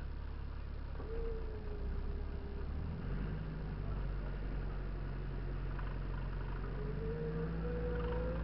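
Off-road vehicle engine running steadily during a recovery, its note stepping up about three seconds in and holding there. A thin whine rises over it twice, about a second in and again near the end.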